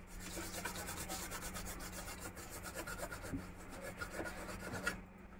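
Fast, continuous scratchy rubbing by hand on a desktop motherboard, stopping about five seconds in, over a steady low hum.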